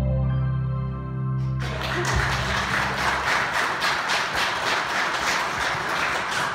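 The last held chord of a song, a sung note over accompaniment with low bass tones, dies away about a second and a half in. Audience applause breaks out and keeps going.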